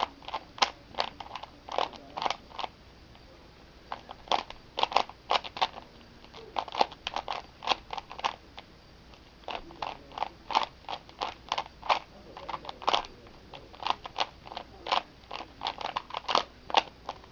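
A Rubik's cube with Lego plates glued on its faces being turned quickly during a speedsolve: rapid, irregular plastic clicks and clacks as the layers snap round, with a brief pause about three seconds in.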